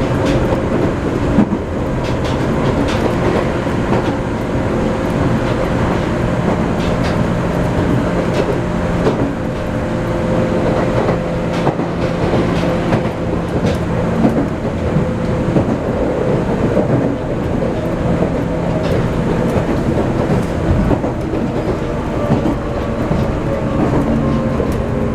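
Chichibu Railway electric train running, heard from inside the car: a steady rumble with the hum of the traction motors and the clickety-clack of wheels over rail joints.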